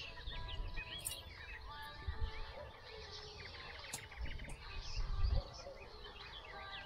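Several small birds chirping and trilling at once, short overlapping calls throughout, with a brief low rumble about five seconds in.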